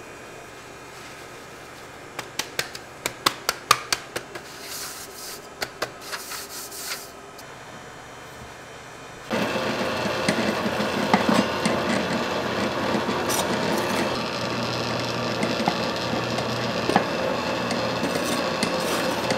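Irregular sharp knocks and taps, with a few short hisses, from about two to seven seconds in. About nine seconds in, background music with drums starts abruptly and continues.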